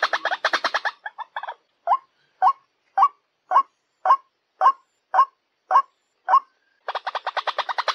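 White-breasted waterhen calling: a fast run of harsh chattering notes, then a slower series of about nine single notes roughly two a second, and the fast chatter starting again near the end. This is the ruak-ruak's lure call, used to draw the birds in.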